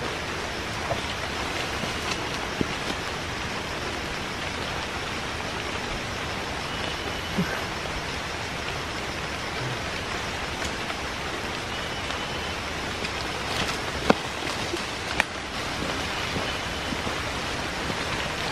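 Steady rain falling, an even hiss of drops on leaves and ground, with a few short knocks in the second half.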